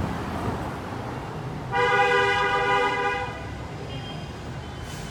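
A car horn sounds once, a steady single blast of about a second and a half, a little under two seconds in, over a constant low traffic rumble.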